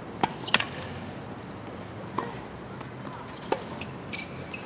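Tennis ball struck by rackets and bouncing on the court during a rally: sharp pops, two close together near the start, one about two seconds in and another about three and a half seconds in.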